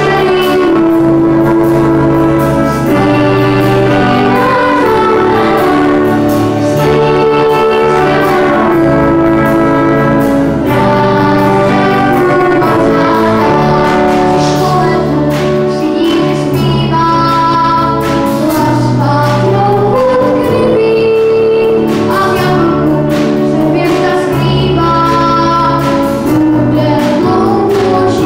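Children's choir singing a song with a boy soloist, accompanied by a school orchestra with piano and drum kit keeping a steady beat.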